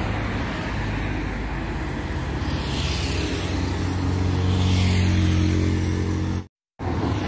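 Road traffic passing close by: car engines and tyre noise, with a steady low engine hum that swells louder around the middle. The sound cuts out completely for a moment near the end.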